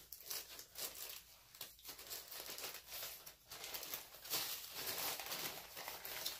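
Plastic packaging crinkling as it is handled, in irregular short rustles.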